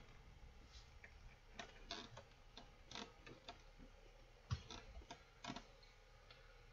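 Near quiet, broken by a dozen or so faint, irregularly spaced clicks and taps.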